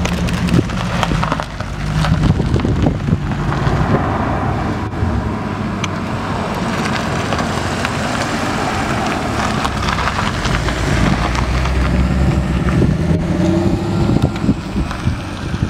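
Sports car engines, among them a Nissan 350Z's and a Mercedes-Benz SLS AMG's, running as the cars drive slowly past, with wind buffeting the microphone.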